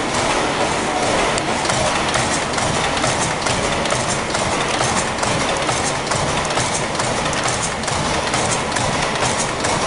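Mill steam engine running at steam pressure: a steady mechanical clatter with rapid, uneven clicking.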